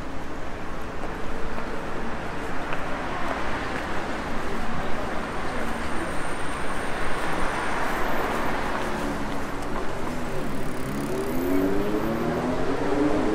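Road traffic on a city street: a passing vehicle's noise swells over several seconds and fades, and near the end a pitched hum rises.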